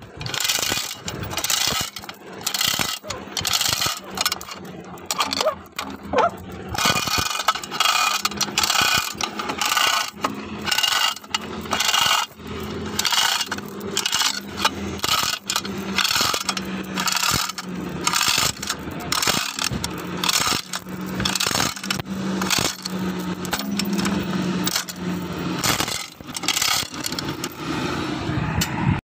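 Rusty steel chain of a manual chain hoist clinking and rattling in many irregular sharp metallic clicks, over a steady low hum.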